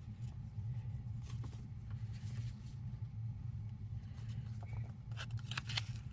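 Paper and plastic sticker sheets rustling and crinkling as they are slid out of small envelopes and handled, with the handling busiest near the end. A steady low hum lies underneath.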